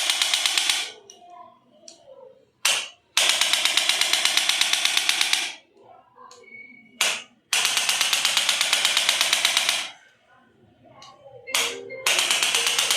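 A handheld mechanical device buzzing with a fast, even pulse, in repeated bursts of about two seconds with short pauses between.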